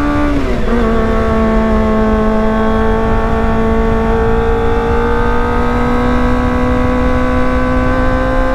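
Kawasaki ZX-25R 250 cc inline-four engine pulling under way. It shifts up about half a second in, dropping in pitch, then holds a steady high-revving note that slowly climbs, with wind rumble underneath.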